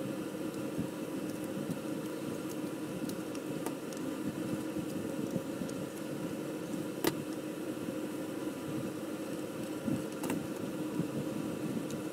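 Steady mechanical hum of a workshop room, with a few light clicks and taps of small plastic model parts and pliers being handled, the sharpest about seven seconds in and another about ten seconds in.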